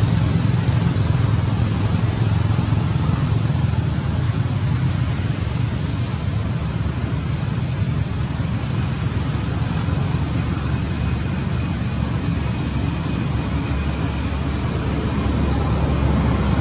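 Steady low rumble of road traffic and engines, even throughout, with a brief high chirp near the end.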